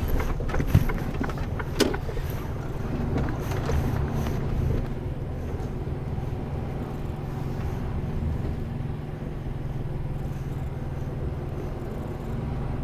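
Mercedes Antos 1824 lorry's six-cylinder diesel engine running steadily, heard from inside the cab, with a few sharp clicks in the first two seconds.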